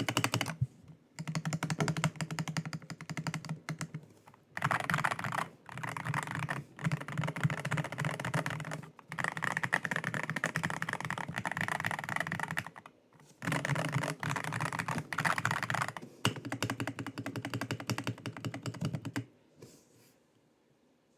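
Fast, continuous typing on an Akko PC75B Plus mechanical keyboard with Akko Jelly Pink linear switches: dense runs of keystroke clicks broken by short pauses. The typing stops about two seconds before the end.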